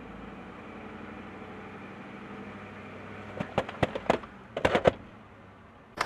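Pickup truck engine running low and steady; about three and a half seconds in, a quick string of sharp cracks and pops as the front wheel rolls up onto a plastic drive-on ramp.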